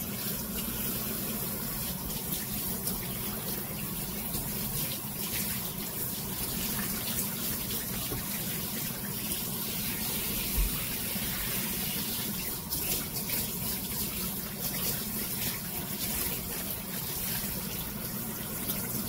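Kitchen faucet spray running steadily, pouring over a small dog's wet, soapy coat and splashing into the sink as its fur is rinsed. One brief low thump comes about halfway through.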